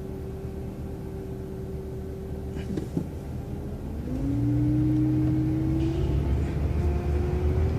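City transit bus idling at a standstill, then pulling away about four seconds in. The engine rumble gets louder and a whine rises in pitch as the bus accelerates.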